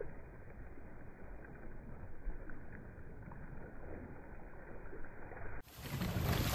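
Dragon boat crew paddling in unison: paddle blades splashing and water rushing along the hull, with wind on the microphone. The noise grows louder and fuller near the end.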